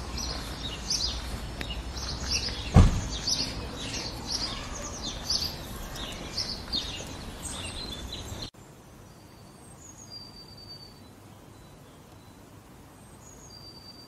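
Small songbirds chirping busily, a rapid run of short high notes over a low background rumble, with one sharp thump about three seconds in. After a sudden cut a little past halfway it turns much quieter, with only a few thin, drawn-out high whistles.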